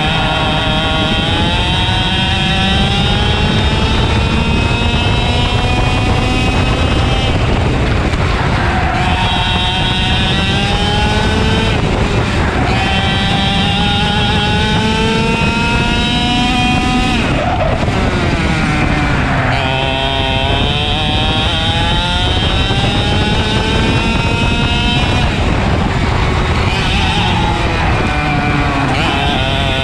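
Racing kart engine heard on board at full throttle, its pitch climbing steadily along each straight and dropping off sharply as the kart lifts and brakes into the corners, several times over, then climbing again.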